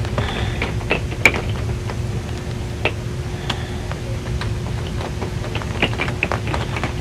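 Scattered raindrops and drips tapping irregularly on an RV's metal roof as the rain eases, over a steady low rumble.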